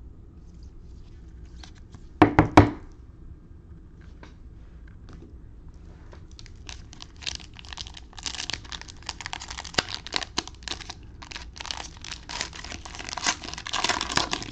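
Cellophane wrapper of a Panini Mosaic basketball cello pack being crinkled and torn open. A dense run of crackles builds from about six seconds in and is loudest near the end. A brief double thump comes about two seconds in.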